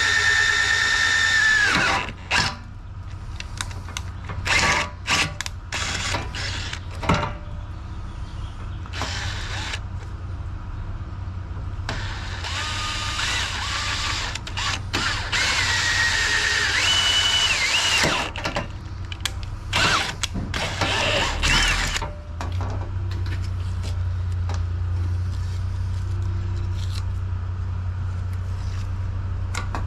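A handheld power tool's motor whining in runs at changing speeds, stepping up and down in pitch, with clicks and knocks of handling between the runs. For the last third, a steady low hum.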